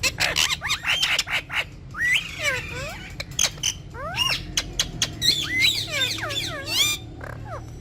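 Indian ringneck parakeets calling: a busy stream of quick chirps and squawks that sweep up and down in pitch, thinning out near the end.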